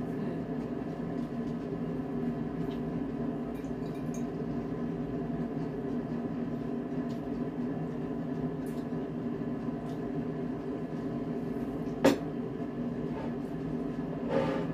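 Steady low hum with several faint held tones, broken by a single sharp click about twelve seconds in and a softer clink near the end.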